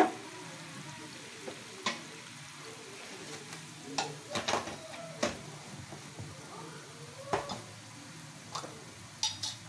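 Sugar-and-water syrup simmering in a non-stick frying pan, the sugar mostly dissolved: a steady faint hiss of small bubbles with scattered sharp clicks.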